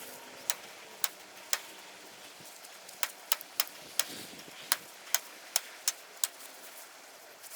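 A series of sharp, short clicks or taps at uneven intervals, about one to three a second, over a quiet background hiss.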